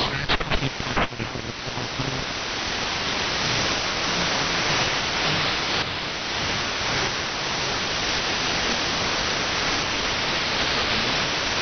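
Steady hiss of AM radio static from a web SDR receiver tuned off any station, with a few short crackles in the first second or so.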